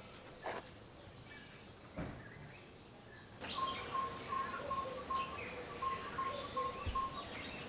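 Quiet rural outdoor ambience: a steady high insect drone with faint bird calls. About halfway in, a run of short, evenly spaced high notes starts and goes on for about four seconds.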